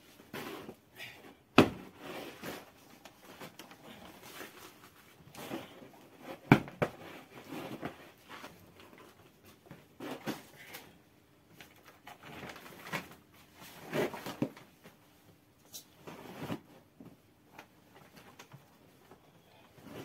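Thick towels and a heavy terry-cloth blanket rustling and swishing as they are handled and folded over a large metal bowl of dough to cover it. Two sharp knocks stand out, about a second and a half in and again about six and a half seconds in.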